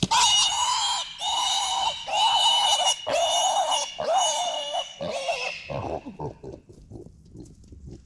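Feral hog squealing loudly in a run of long squeals about a second each, breaking into shorter, fading grunts over the last few seconds: the distress squeals of a hog that is down in the field.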